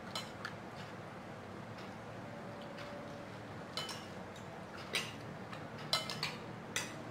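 Spoons clinking and scraping against plates as two people eat, with scattered sharp clinks and a few close together near the end.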